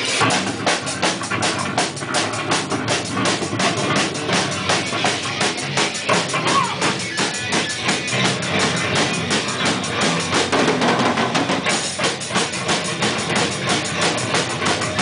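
Punk band playing live: a fast, driving drum kit beat with bass drum and snare under electric guitar, the whole band coming in together right at the start.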